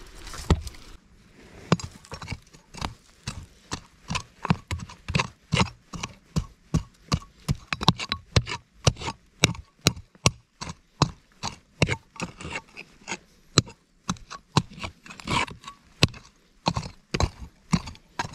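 Hand mattock chopping into stony soil and pebbly rock, about two sharp strikes a second in a steady rhythm as a hole is dug deeper.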